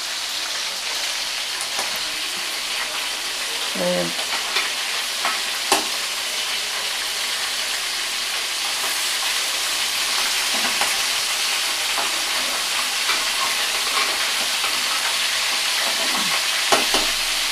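Food frying in hot oil in a pan, a steady sizzle with a few light knocks of a utensil against the pan.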